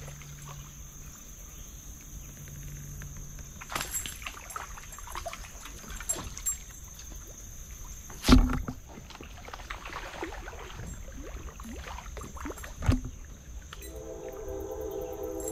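Scattered knocks and clunks on a fishing kayak's hull with faint water sounds, including two louder thumps a little past halfway and near the end. Background music comes in near the end.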